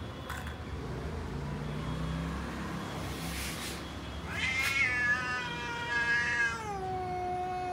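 Domestic cat giving one long, drawn-out yowl of about three seconds, starting about halfway through. It wavers at first, then drops to a lower pitch and holds there.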